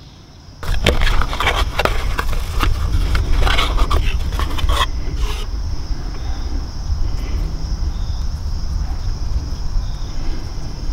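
Crickets chirping steadily over a constant low rumble. Over the first few seconds a run of small clicks and scrapes comes from a plastic purge valve being handled.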